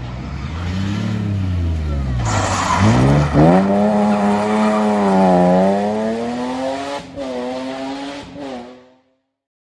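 Rally car, a BMW M3 E36, passing at speed with its straight-six engine revving hard. The engine note rises and falls as the driver accelerates and lifts, with a sharp dip and climb in revs about three seconds in. The sound cuts off near the end.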